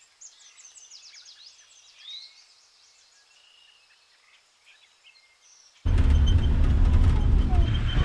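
Faint bird calls: runs of quick high chirps and a short rising whistle about two seconds in. About six seconds in, a sudden cut to a Toyota safari vehicle driving, heard from inside the cab: a loud, steady, low rumble with wind noise on the microphone.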